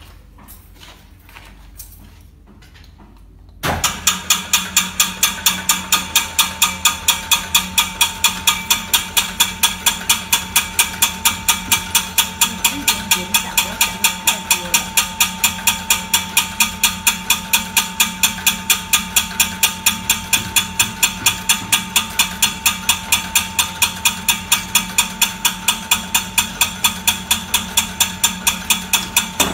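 Small electric-motor corn puff extruder switched on about four seconds in, then running loaded while it extrudes puffed corn sticks: a steady hum with a rapid, even clicking, about four clicks a second.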